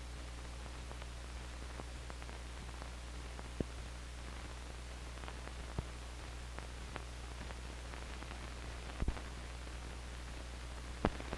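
Steady hiss and low hum of an old film soundtrack, with a few scattered clicks and pops, a double one about nine seconds in.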